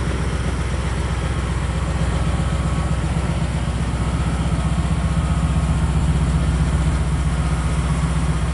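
1969 Chevrolet pickup's engine idling steadily with an even low rumble.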